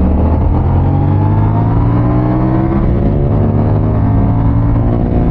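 CFMoto 450 CLC's parallel-twin engine pulling under acceleration: its pitch climbs, drops at a gear change about three seconds in, then climbs again. Wind noise runs underneath.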